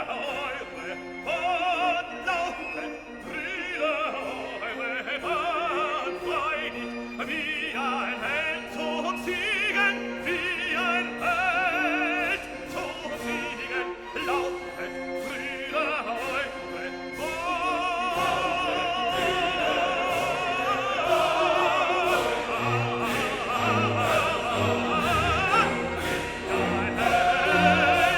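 Background music: operatic classical singing with vibrato over an orchestral accompaniment.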